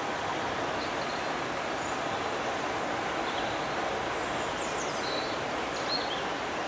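A steady rushing noise without any beat, with small birds chirping several times over it, most of the chirps in the second half.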